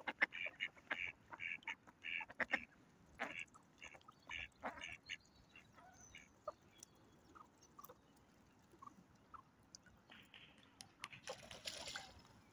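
Ducks quacking: a quick run of short calls over the first five seconds, then a few scattered ones, with a short burst of rustling noise near the end.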